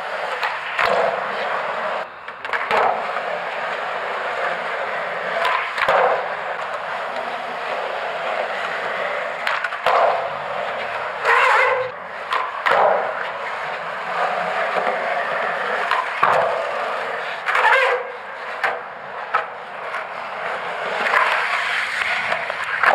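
Skateboard wheels rolling on a smooth concrete floor, with sharp knocks of the board's tail and deck hitting the ground every few seconds.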